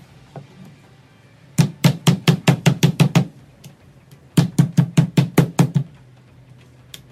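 Metal meat tenderizer mallet pounding raw chicken breasts flat on a wooden cutting board: two quick runs of about nine thudding blows each, roughly six a second, with a short pause between.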